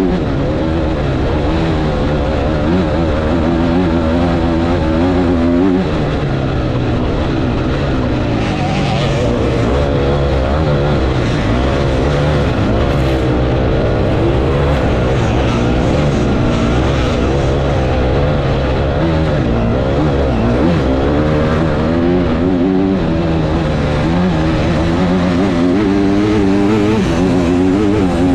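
Off-road motorcycle engine heard from a camera mounted on the bike, its note rising and falling continuously as the throttle works. The pitch drops sharply about six seconds in, then keeps climbing and falling.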